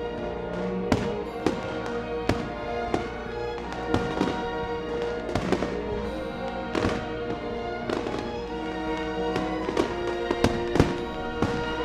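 Fireworks going off in irregular bangs and pops, about one or two a second, over music with long held notes.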